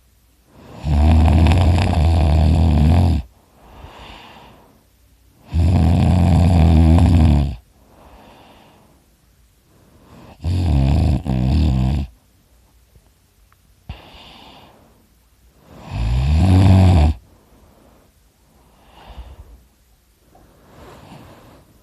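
A man snoring heavily in his sleep, mouth open: four loud, rattling snores on the in-breath, about five seconds apart, with quieter breaths out between them. The third snore breaks off briefly in the middle.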